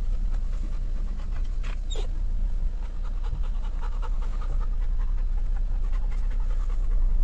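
Labrador retriever panting steadily with its mouth open, over the steady low hum of the car's running engine.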